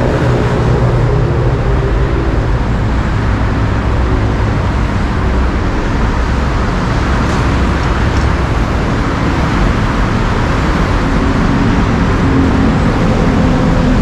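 Steady, loud noise of dense road traffic on a multi-lane highway: cars, pickups, buses and motorbikes passing, with a constant engine hum. A deeper engine note from a heavier vehicle joins near the end.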